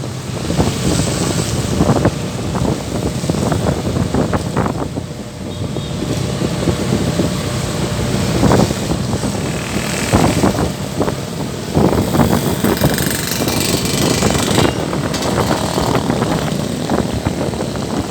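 Traffic in rain: vehicle engines under a dense, crackling rush of noise that stays loud throughout.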